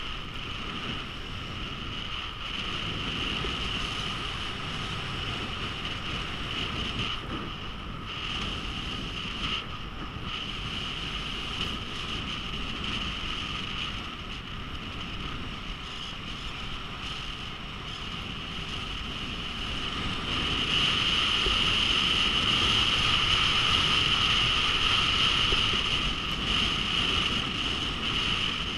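Skis sliding on groomed snow with wind rushing over a helmet-mounted action camera at skiing speed: a steady hiss that grows louder about two-thirds of the way through.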